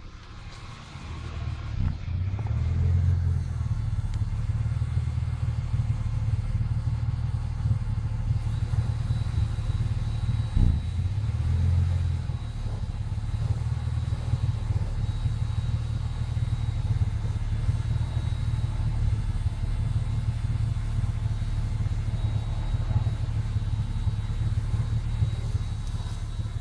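1996 Ford Falcon EF's 4.0-litre inline-six engine idling with a low, uneven note, the idle misfire and stumble the car suffers from. The running swells briefly a couple of times, about three seconds and about eleven seconds in.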